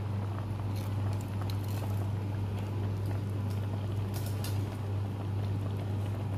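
A steady low hum with faint, scattered light ticks and crackles from a pan of coconut-milk stew as pieces of fried fish are eased into it.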